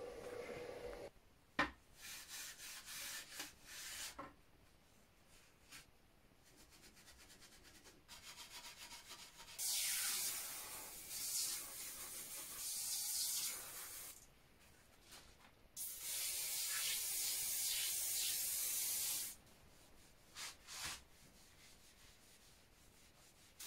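Aerosol foam cleaner sprayed onto a rusty rifle barrel in two long hisses of about three and a half seconds each, with short bouts of rubbing and scrubbing between them.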